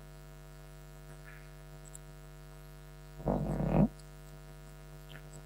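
Steady electrical mains hum in the sound system, with one short muffled sound lasting about half a second, a little past the middle.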